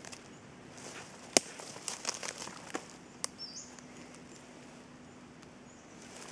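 Scattered sharp clicks and crackles in a quiet forest, the loudest about a second and a half in and a quick run of them soon after, with one brief high rising chirp from a small bird about halfway through.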